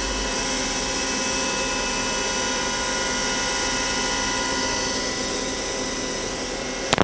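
Sub-spindle of a Star SV-32J Swiss-type CNC lathe spinning at 4000 rpm: a steady mechanical whine made of many held tones. A single sharp click comes near the end.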